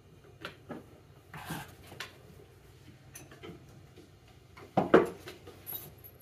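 Handling noises from cable work among the floor joists: scattered knocks, clicks and rustles, with one louder thump about five seconds in.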